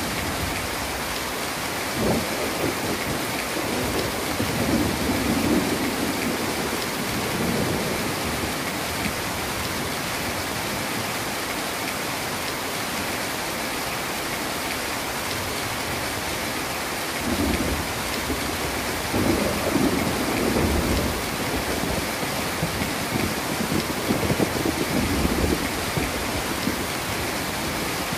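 Heavy rain falling steadily, with thunder rumbling twice: a roll from about two seconds in that lasts several seconds, and a longer one in the second half.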